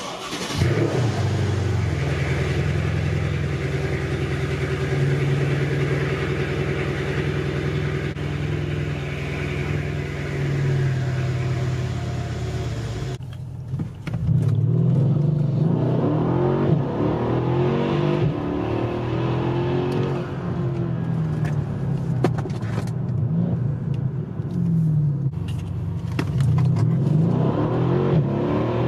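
Mercedes-Benz E63 AMG's twin-turbo 5.5-litre V8 starting from cold with a flare of revs, then running at a steady fast idle. About thirteen seconds in, it is heard from inside the cabin, revving up and falling back several times as the car accelerates.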